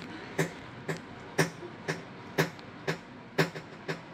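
Background music with a steady beat: one strong hit about every second and lighter hits between.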